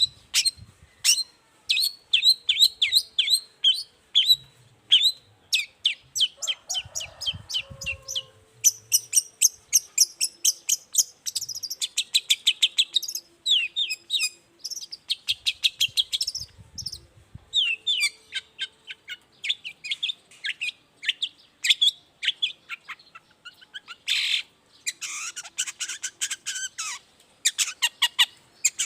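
Long-tailed shrike (cendet) singing a fast, varied song of rapid high chirps and trills, repeated in quick runs with only brief pauses.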